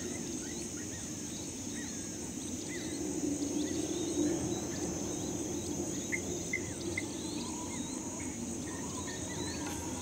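Natural outdoor ambience: a steady high insect trill with many short high chirps scattered over it, above a steady low noise.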